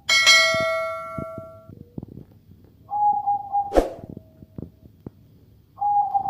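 A metallic clang rings out right at the start and dies away over about a second and a half. Later come held, single-pitched notes from a zebra dove (perkutut), one about three seconds in and another near the end, with a sharp knock between them.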